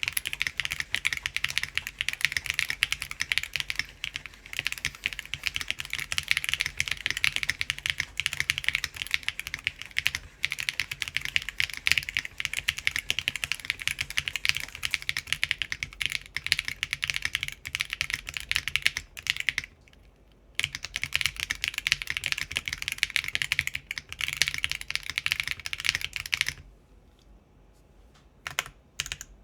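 Fast, continuous typing on a Typface Kafka mechanical keyboard with Geon RAW HE Hall-effect switches and ABS doubleshot keycaps, on an aluminum plate in o-ring gasket mount. The typing stops briefly about two-thirds in, and again near the end, where only a few single keystrokes follow.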